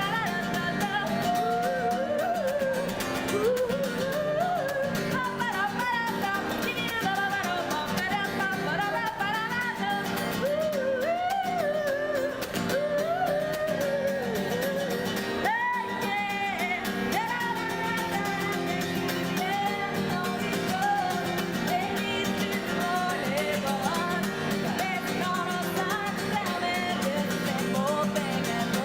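A woman singing a song over acoustic guitar accompaniment.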